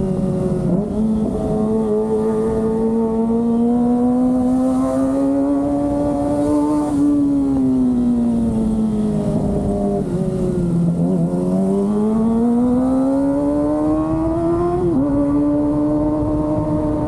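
Kawasaki ZX-25R's 250 cc inline-four engine running under way, its pitch climbing and falling with the throttle. The pitch dips briefly about a second in and again near the end.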